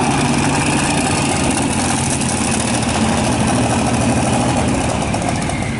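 Big-block engine of a modified two-wheel-drive pulling truck idling steadily at the start line before its pull.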